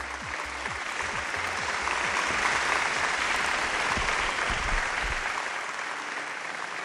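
Audience applauding, swelling to a peak and then tapering off, with low music fading out under it during the first few seconds.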